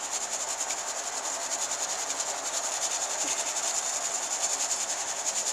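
Hardwood ash being sifted through a wire-mesh strainer shaken over a stainless steel pot: a steady, rapid, even rustling hiss.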